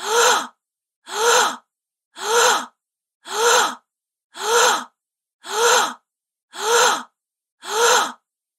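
A woman's gasp, the same short breath repeated eight times, about once a second, with dead silence between each.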